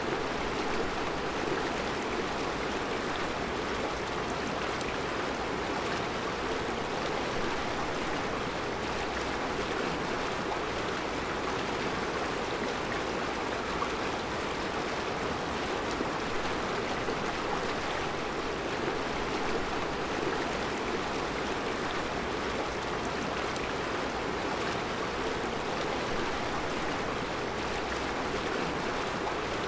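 Mountain river flowing over round rocks in a rocky riverbed: a steady, unbroken rush of water.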